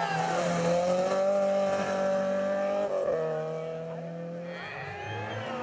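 A Peugeot 205 rally car's four-cylinder engine running hard at steady high revs, the note breaking briefly about three seconds in and then fading as the car goes away. Near the end a second rally car's engine rises in pitch as it approaches.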